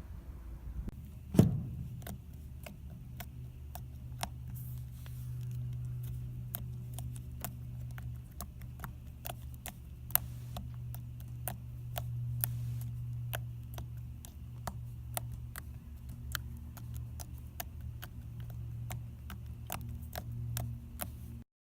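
Soft butter slime being poked and squished by hand, giving an irregular run of small sharp clicks, about two or three a second, with one louder thump about a second in. A steady low hum runs underneath.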